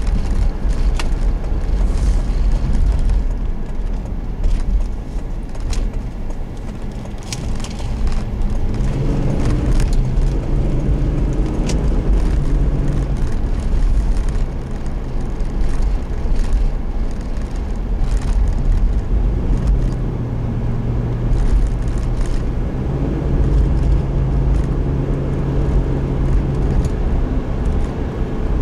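Motor vehicle driving: a steady low engine and road rumble. About nine seconds in, an engine hum comes up in pitch and holds for most of the rest.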